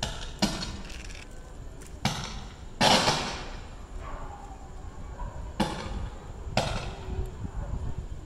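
Electrical arcing at a burning power distribution box: a series of about five sharp crackling bangs, each trailing off, the loudest about three seconds in.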